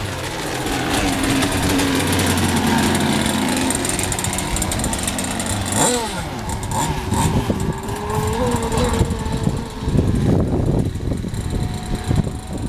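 Radio-controlled gas racing boat's small two-stroke gasoline engine running flat out as the boat speeds across the water, its pitch dropping sharply as it passes about six seconds in and then holding steady as it runs away. A rough low buffeting noise rises over it in the last few seconds.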